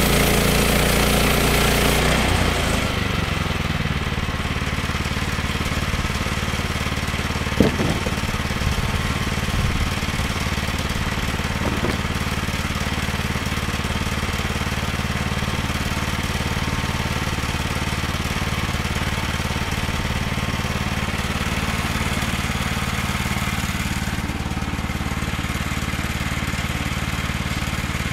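Small gasoline engine of a Woodland Mills HM122 portable bandsaw mill running fast, then dropping to a steady idle about two to three seconds in. A single sharp knock comes about eight seconds in.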